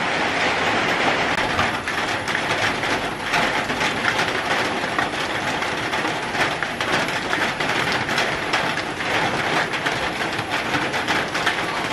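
Rain falling steadily: a dense, even patter of many drops on the garden, with water dripping off the roof edge onto the ground.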